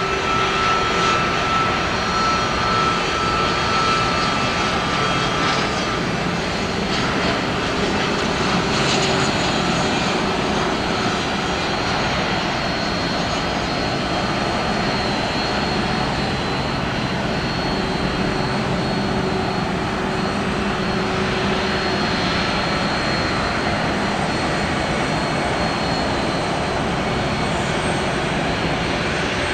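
Jet airliner engines running steadily: an even rush of engine noise with a few steady high whining tones over it.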